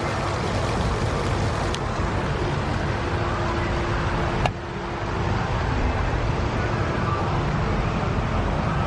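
Strong wind buffeting the microphone, a steady low rumble, with a faint steady hum and a sharp click about four and a half seconds in.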